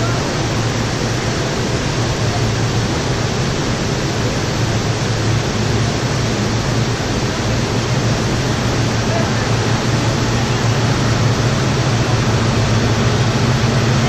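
Steady rushing of a tall multi-tiered waterfall heard from near its base, growing slightly louder toward the end.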